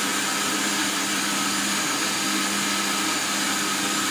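Electric countertop blender running at a steady speed, a loud even whir with a steady motor hum, as it blends pineapple and ginger with water into juice.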